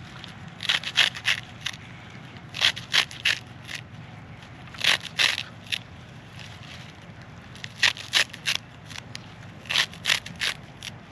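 Short crunching scrapes in quick clusters of two to four, repeating about every two seconds over a low steady background hum.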